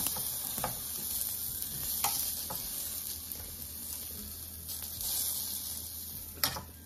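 Food sizzling steadily in a hot frying pan, fading gradually toward the end, with a few sharp clicks of a utensil.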